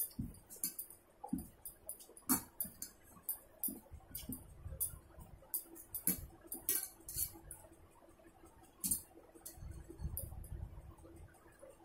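Eating rice by hand from a steel plate: frequent short clicks and smacks of chewing and of fingers mixing rice against the plate, with two stretches of low rustling as the rice is worked. A faint steady hum sits under it.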